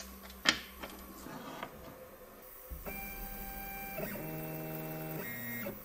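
CNC router's stepper motors whining as the Z axis drives the end mill down onto a touch plate. The whine starts about three seconds in, drops to a lower pitch about a second later, changes again near the end, then stops. Before it there is a faint hum and a few sharp clicks, the loudest about half a second in.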